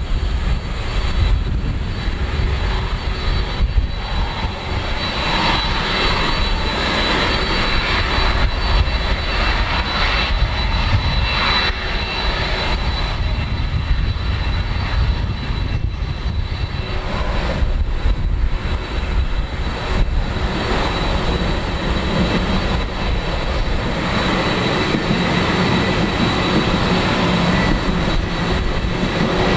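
Jet engines of a Boeing 767-300 airliner running at taxi power as it taxis, a steady high whine over a low rumble.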